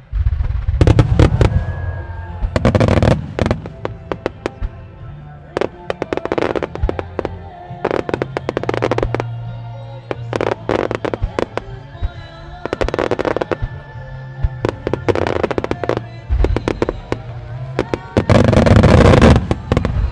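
Starmine fireworks barrage: rapid volleys of shell bursts and crackling, building to a long, dense, loud barrage near the end, over music with steady low tones.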